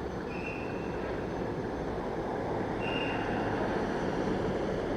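Fire pumper's engine running steadily as the truck reverses, with a short high beep from its reversing alarm twice, a few seconds apart.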